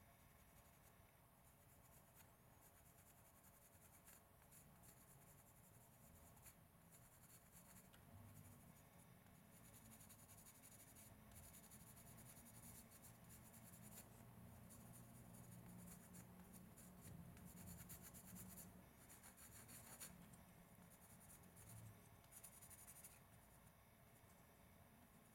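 Graphite pencil scratching faintly on a carved wooden blank in short, repeated drawing strokes, with a faint low hum through the middle stretch.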